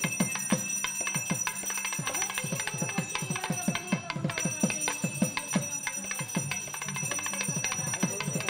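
Pooja hand bell rung rapidly and without a break, about five strikes a second over its steady ringing tone.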